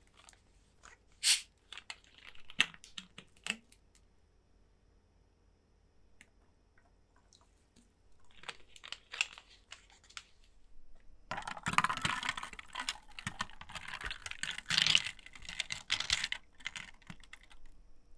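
Carbonated gin and tonic fizzing over ice in a glass, close up: scattered sharp ticks and pops at first, then about eleven seconds in a dense spell of crackling that lasts some six seconds.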